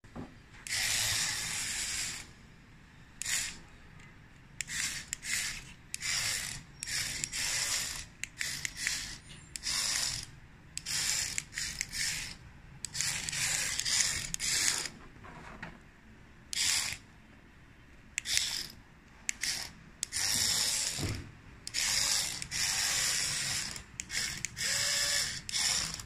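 Remote-control toy cockroach's small geared motor whirring as its legs crawl. The motor starts and stops many times, in short high-pitched bursts from a fraction of a second to about two seconds long.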